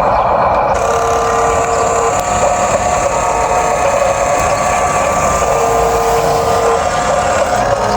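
Small electric motors of a radio-controlled excavator running with a steady whine. A lower motor tone joins briefly about a second in and again near the two-thirds mark.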